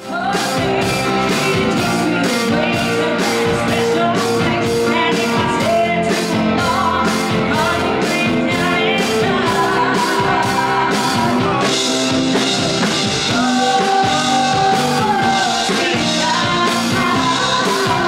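Live band playing an upbeat rock-and-roll song: a female singer over drum kit and electric guitar, with a steady beat throughout.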